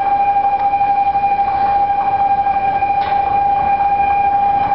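Railway level-crossing warning alarm sounding one steady, unbroken high tone.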